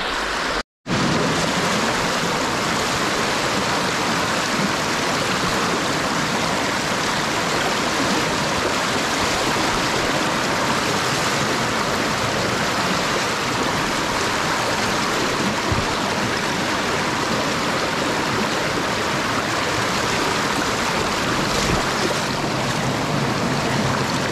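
Small rocky mountain stream rushing and splashing over rocks and little cascades, a steady close-up rush of water. The sound drops out for a moment under a second in.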